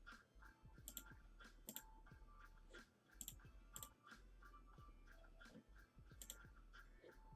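Faint, scattered sharp clicks, about five or six of them spread across a near-silent background.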